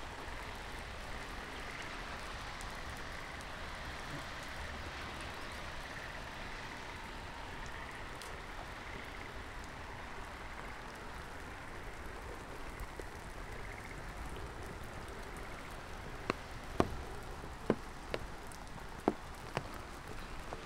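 Steady rain falling, an even hiss, with several sharp taps in the last few seconds.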